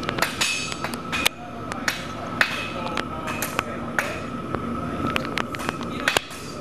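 Hand hammer striking a red-hot steel bar on the edge of an anvil, drawing its end out to a taper. The blows come sharp and ringing, about two a second at an uneven pace.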